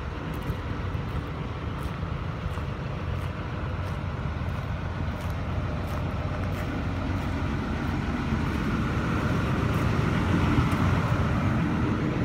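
Sumitomo SH300-5 excavator's Isuzu 6HK1 six-cylinder diesel engine idling steadily, growing somewhat louder over the last few seconds.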